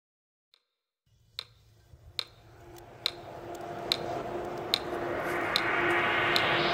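A clock ticking evenly, a little faster than once a second, starting about a second in, over a low hum and a hissing swell that grows steadily louder.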